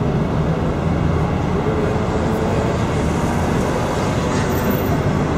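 Steady rumble of city traffic on a wide multi-lane avenue, heard from the open top deck of a tour bus, with a low engine hum underneath.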